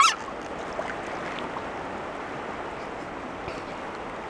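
A child's vocal throwing sound effect ending in a quick, steeply rising squeal right at the start. After it comes a steady rushing background noise with no clear splash or impact.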